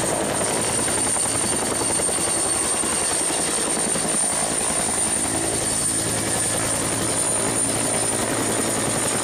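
Turbine helicopter lifting off and hovering: a steady, fast rotor chop under a constant high turbine whine.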